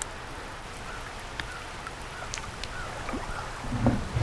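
Steady hiss of rain, with a few light ticks of drops, and low bumps near the end as the rod and camera are moved.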